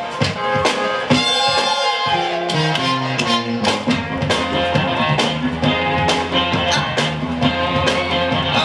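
Instrumental music with a steady drum beat and held melodic notes.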